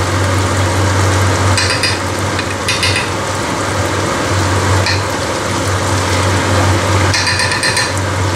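Meat and vegetables frying and sizzling steadily in a non-stick wok, over a steady low hum. A few short metallic clinks of a spoon against the pan come about 2, 3, 5 and 7 seconds in as salt is stirred in.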